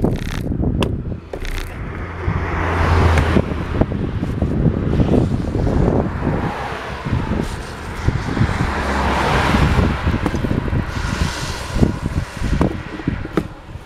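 Wind rushing over the microphone of a camera on a road bike descending at speed: a loud low buffeting rumble with gusts that swell and fade.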